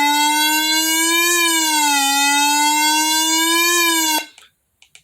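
Weather radio's built-in alert siren, set off by the NOAA Weather Radio weekly test alarm tone: a loud electronic wail that slowly rises and falls, cutting off suddenly about four seconds in.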